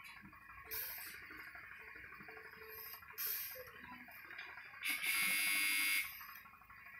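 An electric buzzer sounds once for a little over a second, near the end, loud and steady. Earlier come two brief whooshes about two and a half seconds apart.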